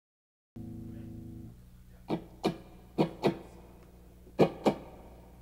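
Guitar through an amplifier: a held tone for about a second, then three pairs of sharp strummed chord hits over a steady low amplifier hum.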